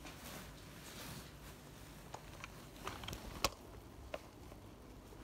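Faint rustling of dark clothing brushing close to the microphone, with a few scattered light clicks and taps; the sharpest click comes about three and a half seconds in.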